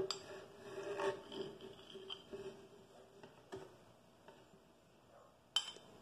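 Butter being scraped off a ceramic plate into a plastic blender jar with a small spoon: a few scattered clinks and taps of the spoon on the plate and jar rim, the sharpest one near the end.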